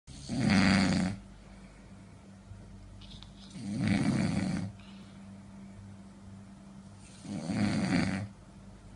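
A sleeping man snoring loudly: three long snores, each about a second long, coming roughly every three and a half seconds.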